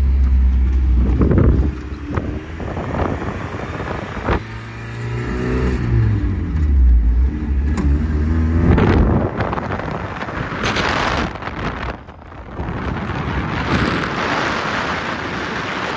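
Vehicle engine running and revving, its pitch falling and rising several times, then a loud rushing noise through the second half.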